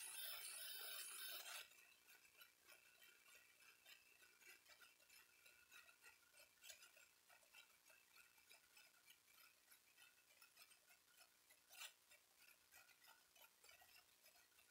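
Near silence: faint room tone with light scattered ticking, a brief rushing noise in the first second and a half, and a single sharp click about twelve seconds in.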